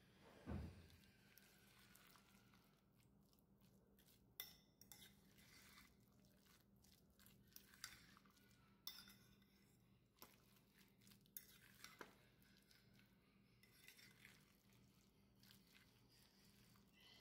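Metal utensil stirring egg salad in a ceramic bowl: soft scrapes and irregular faint clinks of metal against the bowl.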